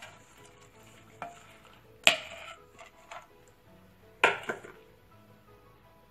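Two sharp metal clanks about two seconds apart, with a few lighter clicks around them: a metal bowl knocking against the rim of an aluminium pressure cooker as the last of the soaked rice is tipped in.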